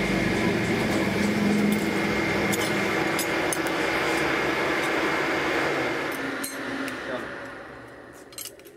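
Electric forge blower running steadily, blowing air into the coal fire with a humming whine, then fading away over the last few seconds. Light metallic clinks from the tongs are heard here and there.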